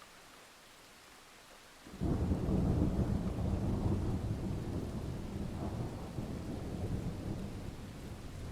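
Thunder over a faint steady hiss of rain: a deep rumble starts suddenly about two seconds in and slowly dies away over the next several seconds.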